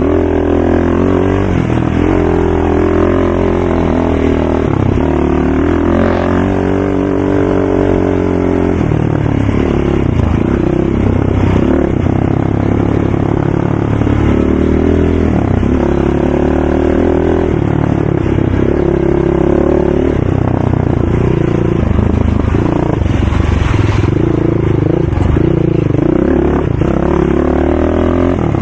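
Racing ATV engine running hard, its pitch rising and falling again and again as the throttle is opened and backed off.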